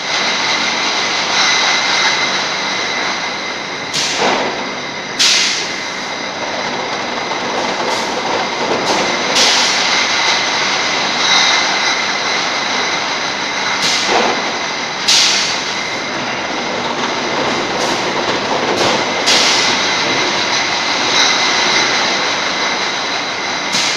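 Brewery bottle crate-packing machine running: a steady mechanical drone with a high whine and glass bottles clinking. Short sharp bursts cut through it every one to four seconds as the gripper heads work.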